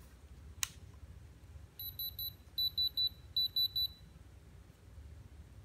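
Diamond Selector II diamond tester's electronic beeper sounding three quick groups of three short, high beeps, the first group quieter, as the tester is switched on and readied for testing stones. A single sharp click comes just before them, about half a second in.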